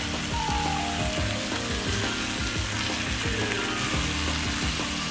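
Chicken pieces in masala sizzling and frying in a non-stick pan while a spatula stirs them. The cooking liquid has boiled off, so the meat is frying dry in its oil.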